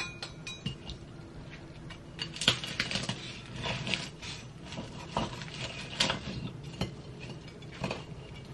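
A knife sawing through the crisp fried egg-roll wrapper of an apple turnover, the shell crunching in a run of small irregular crackles from about two seconds in, with a few sharper clicks.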